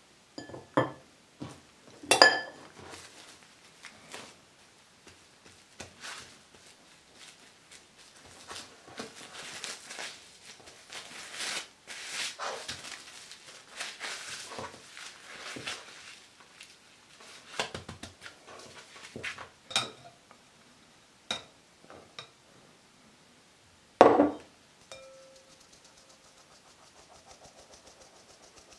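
Hands working dough on cling film on a stone countertop: a spatula clicking and scraping against the surface, then a long stretch of plastic wrap crinkling as the dough is wrapped and pressed flat. A few more clicks follow, then one loud knock about 24 s in with a short ring after it, and a faint fast patter from a flour sieve near the end.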